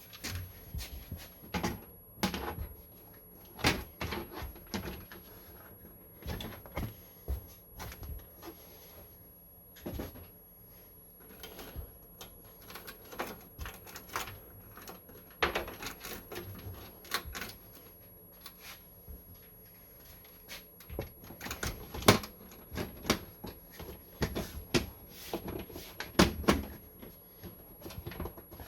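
Irregular clicks, taps and knocks of computer parts and a PC case being handled during assembly, spread unevenly with short pauses and a sharper knock a little after the middle.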